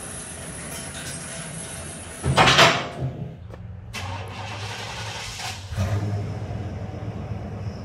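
1997 GMC Sierra C1500 pickup's engine starting, with a short loud burst about two seconds in, then idling steadily with a brief swell about six seconds in.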